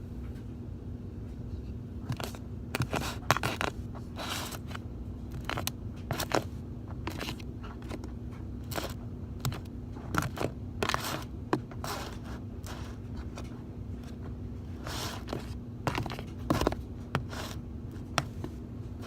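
Slime being mixed with water in a bowl: irregular scraping and crunching strokes, some sharper and louder than others.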